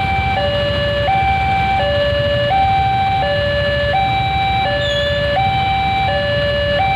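Railway level crossing warning alarm sounding with the barrier down. It is a loud electronic two-tone alarm, alternating high and low, each tone held about two-thirds of a second. Queued motorcycle engines idle underneath it.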